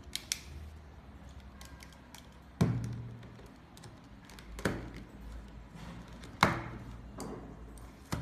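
A plastic collapsible camping lantern is knocked against a wooden tabletop as it is pushed closed and pulled open. It makes three hollow thunks about two seconds apart, the last the loudest, with a few light plastic clicks near the start and end.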